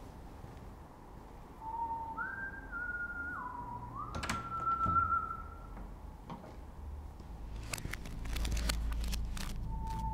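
A person whistling a slow run of a few long held notes that step up and down in pitch. A sharp knock comes partway through, and several sharp knocks over a low rumble near the end.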